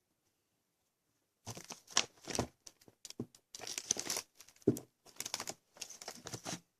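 Paper rustling and crinkling on and off, the sound of a paper copybook's pages being handled and turned, starting after about a second and a half of silence.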